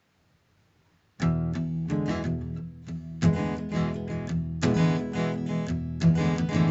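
Near silence for about a second, then strummed acoustic guitar music: chords struck in a steady rhythm.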